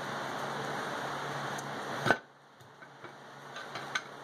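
Pry bar and screwdriver working a lawn mower tire bead off its steel rim: a steady hum, then one sharp metal clack about two seconds in, after which the hum drops away and only a few light tool clicks remain.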